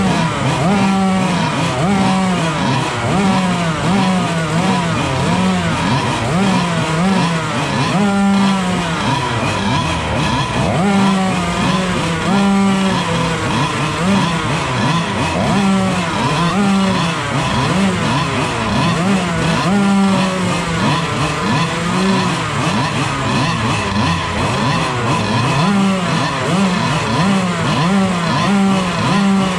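Several small kart engines running and being blipped, their pitch rising and falling over and over, about once a second.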